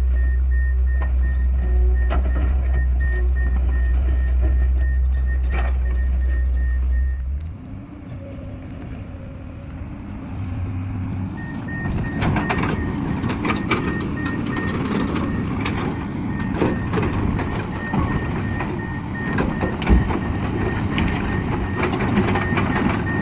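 Heavy construction machine working with its warning alarm beeping rapidly and steadily. A deep rumble cuts off suddenly about seven seconds in. The machine noise then carries on with knocks and clanks, and the beeping comes back after a few seconds.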